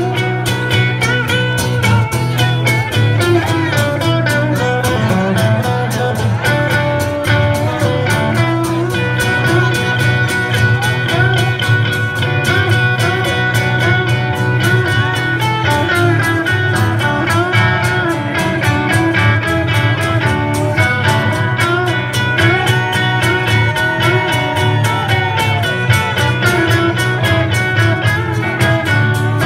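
A live band playing on two guitars, one of them acoustic, over a steady low bass, with a melodic lead line moving above the strumming.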